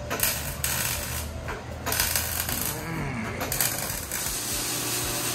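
Metal clinking and clattering with a few short noisy bursts, from work under a car on a shop lift during an exhaust install, over a steady low hum.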